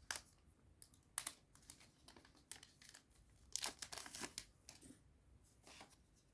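A trading-card booster pack wrapper being torn open and crinkled by hand: short, scattered crackles, busiest a little past halfway.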